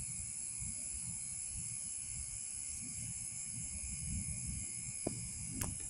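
Steady outdoor background: an even high hiss with low, uneven rumbling of wind on the microphone, and two faint clicks near the end.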